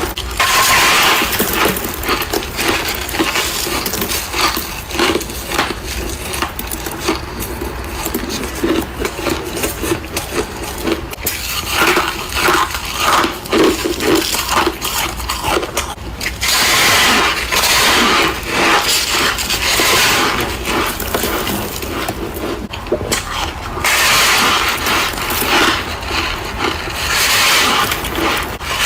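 Freezer frost being crunched and scraped: a steady run of crackly, gritty crunches with many small clicks, swelling in stretches.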